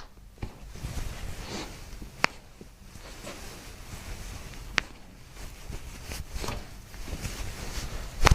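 Quiet rustling of a body and clothing shifting on a treatment table, with two brief sharp clicks about two and a half seconds apart.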